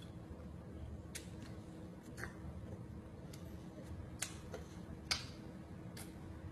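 A baby eating chocolate spread by hand from a glass jar: a few sparse, irregular sharp clicks and taps of hands, fingers and mouth, over a faint steady low hum.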